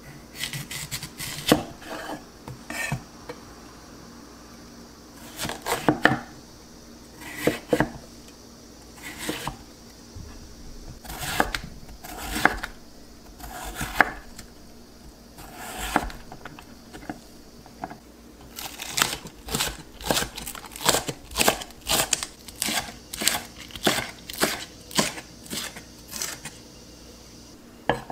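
Chef's knife slicing Korean radish on a wooden cutting board: groups of knife strokes knocking on the board, then a quicker, even run of cuts at about two or three a second for most of the second half.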